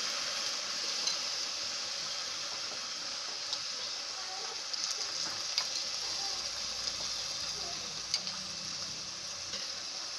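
Onion, ginger, garlic and green chilli sizzling steadily in hot sunflower oil in a pan, with a few light clicks.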